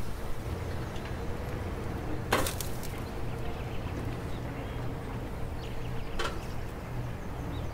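Raw steaks laid on the hot stainless grate of a lit Magma Chefsmate propane grill, two brief sizzles about four seconds apart as the meat touches the metal, over a steady low rumble.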